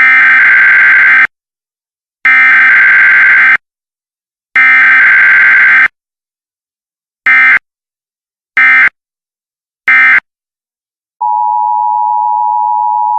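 Emergency Alert System (EAS) SAME header tones: three buzzy digital data bursts of about a second and a half each, a second apart, then three short bursts. About 11 seconds in, the steady two-tone EAS attention signal starts and holds.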